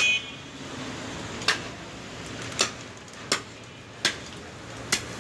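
A heavy butcher's knife chopping into a hanging beef carcass: about six sharp strikes, roughly one a second, over steady background noise.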